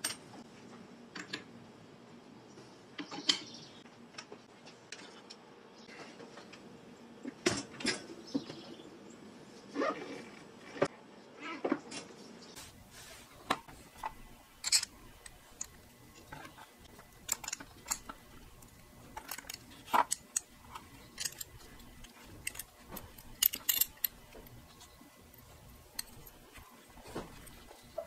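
Small metal parts of a Pfaff 1245 industrial sewing machine's thread-tension assembly clicking and clinking as they are handled and taken apart, in scattered light taps with short pauses between.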